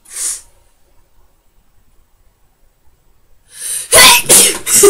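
A short sharp sniff, then after a pause a loud human sneeze about four seconds in: a quick rising in-breath and an explosive burst of breath, followed by more loud breathy bursts.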